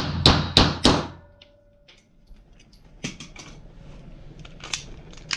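Four pistol shots in quick succession, about a third of a second apart, each with a short echo off the walls of an indoor range. A few fainter clicks and knocks follow a couple of seconds later.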